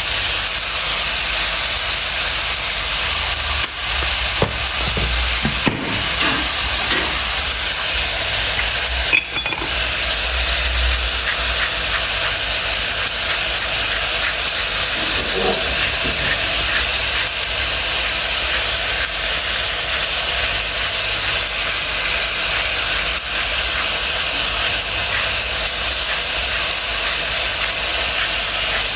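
Food sizzling in a frying pan: a steady frying hiss with a few brief clicks and knocks in the first third.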